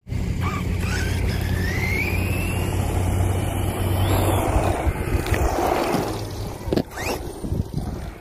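Brushless electric motor of a Redcat Volcano EPX PRO RC monster truck running, its whine rising in pitch as it speeds up over the first few seconds, with a couple of sharp knocks about seven seconds in.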